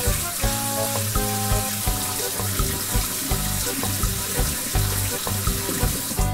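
Steady hiss of water spraying in a toy car wash, starting and stopping abruptly, over background music with a steady beat.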